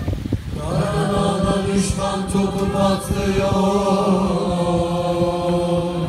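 Large stage choir singing one long held chord that swells in about half a second in and is sustained to the end.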